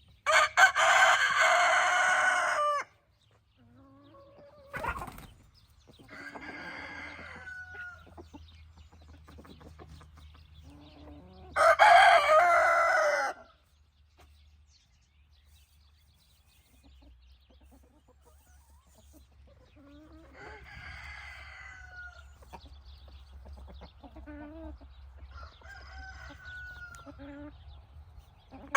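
Roosters crowing: two loud crows of a couple of seconds each, one near the start and one about twelve seconds in, with fainter crows from further off and softer hen calls between. A single sharp click about five seconds in.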